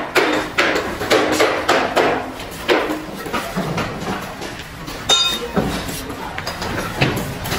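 A bricklayer's trowel scraping and knocking in a tub of mortar, with a run of knocks in the first few seconds. A single sharp ringing clink comes about five seconds in.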